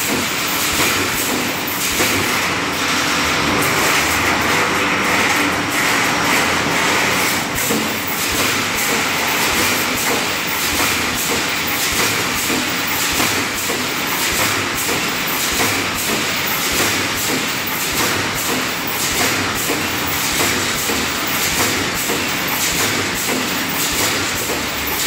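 Automatic reinforcing wire mesh welding machine running: resistance welds firing across the steel mesh as it advances. The noise is loud, dense and steady, with rapid repeated clicks.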